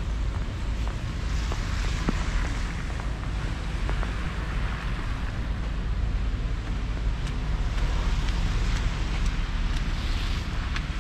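Steady city street noise of passing traffic, with a low rumble of wind on the microphone and a few faint ticks.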